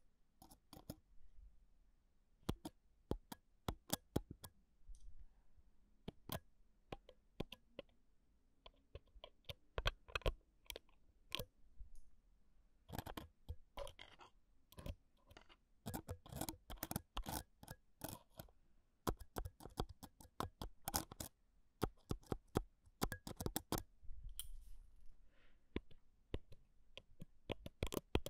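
Close-miked handling of a Zoom handheld recorder: fingers and nails tapping and scratching on its body make sharp, irregular clicks and scrapes in quick clusters with short pauses between.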